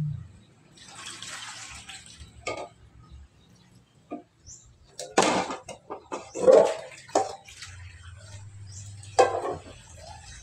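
Dishes being washed by hand in basins of water: water splashing and pouring, with clinks and sharp knocks of plates, cups and a metal pot, the loudest knocks about five and nine seconds in.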